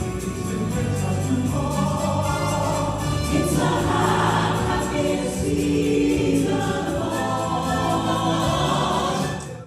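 A choir singing a sacred piece in held, sustained chords. It breaks off abruptly just before the end.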